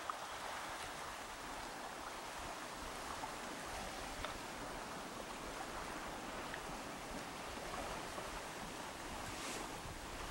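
Sea water washing against the shore at high tide: a steady, even hiss with a few faint scattered ticks.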